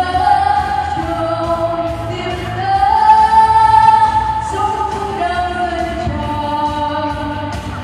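Women's vocal group singing into microphones over a musical accompaniment, holding a long, loud high note in the middle before moving on to shorter phrases.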